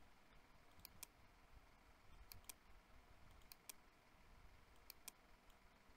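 Faint computer mouse clicks: four pairs of quick clicks, one pair about every second and a half, over faint room hiss.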